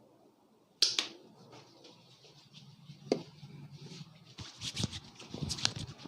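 Hands working over a head in a vigorous head massage: a sharp slap just under a second in, then scratchy rubbing, and from about four seconds a quick run of pats and clicks.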